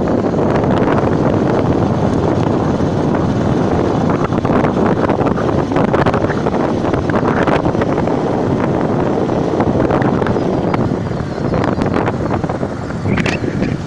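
Wind blowing across the microphone, a loud, steady rush and rumble with no speech.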